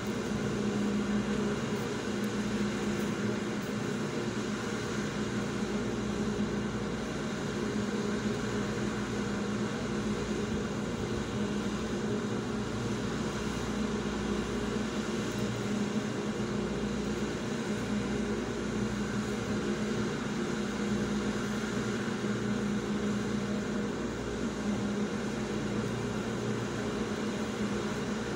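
Steady machine hum with a strong low drone that holds one pitch throughout, over an even rushing noise.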